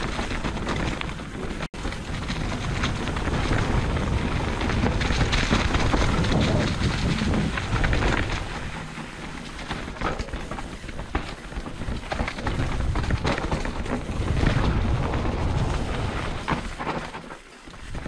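Heavy wind noise buffeting the microphone during a fast downhill run, mixed with a constant low rumble and dense rattling clatter over rough ground. The sound cuts out for an instant about two seconds in and eases briefly near the end.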